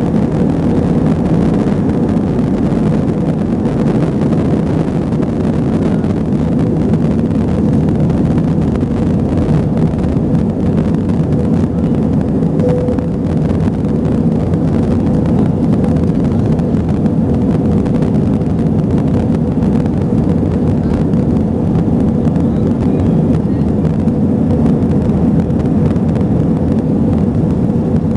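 Airbus A320 jet engines running at high power during takeoff, a loud, steady noise with a steady hum in it and no change in level.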